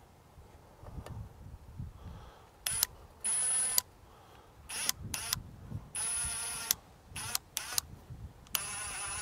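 Cordless impact driver with a T25 Torx bit driving a 3-inch exterior screw into a 2x4, run in about eight short trigger bursts with a high whine, starting a few seconds in. Low knocks of wood being handled come between them.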